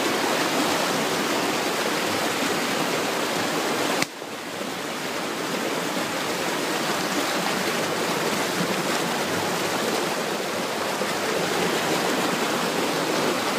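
Rushing stream water cascading over limestone boulders, a steady loud rush of white water. The sound dips suddenly about four seconds in and builds back within a couple of seconds.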